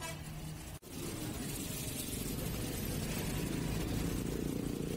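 Slow road traffic: engines of motorcycles, a bus and a truck running close by in a queue, a steady low rumble. It cuts out briefly just under a second in.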